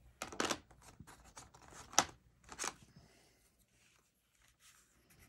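Colored pencils being handled on a desk: a few short rustles and a sharp click about two seconds in, the sound of a pencil being set down and the next picked up, then near quiet.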